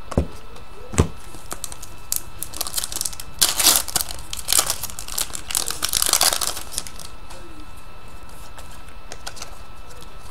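Two sharp clicks as trading cards are handled, then a few seconds of crinkling and crackling as a foil trading-card pack wrapper is torn and pulled open, loudest in the middle.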